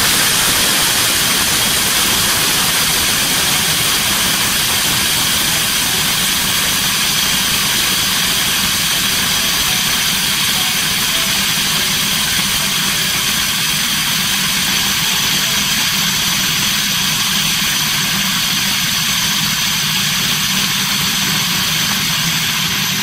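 Electric grinder running steadily at full speed, milling dried chickpeas, mung beans, red lentils and corn into fine powder.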